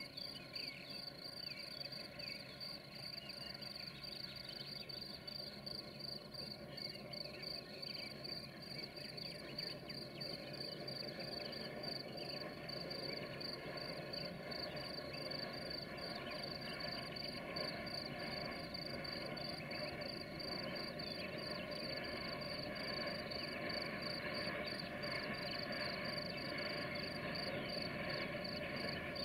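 Crickets chirping in a steady, fast-pulsing high trill. Under it is a faint distant drone of diesel locomotives hauling a freight train up a grade, growing a little louder toward the end.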